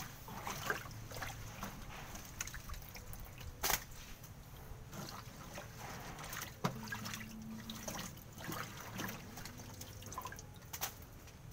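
Shallow water splashing and dripping as hands stir it and push floating pieces of plant stalk under, with a few sharper splashes.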